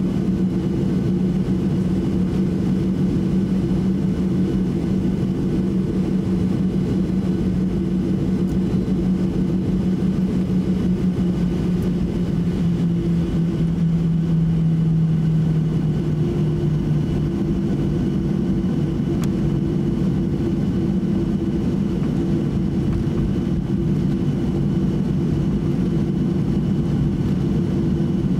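Boeing 737-800 taxiing, heard from inside the cabin: a steady hum from its CFM56-7B engines at taxi power. A low drone dips slightly in pitch about halfway through.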